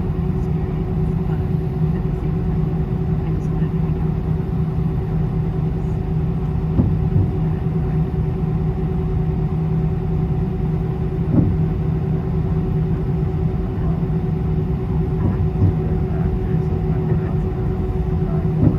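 Steady drone of an Airbus A320 airliner cabin, a constant hum over low rumble, with a few light knocks.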